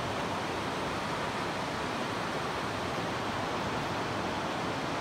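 Steady rush of creek water tumbling over a small rocky rapid.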